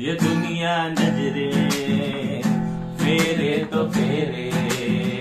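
Acoustic guitar strummed in a steady rhythm, the chordal accompaniment of a Hindi devotional song (bhajan), heard between the sung lines.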